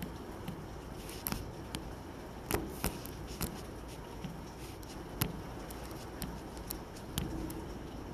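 Heavy rain falling steadily, with irregular sharp taps of nearby drops striking close to the microphone.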